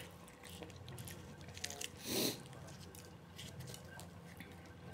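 Someone chewing a mouthful of samosa, with small crackles and clicks as the fried pastry is broken apart by hand. About two seconds in there is one short, louder rush of noise.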